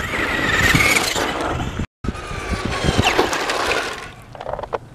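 Traxxas radio-controlled short-course truck running over dirt and gravel, its motor whining higher as it speeds up during the first second. The sound cuts out for a moment, then the whine falls away, and near the end it is quieter, with scattered clicks of stones.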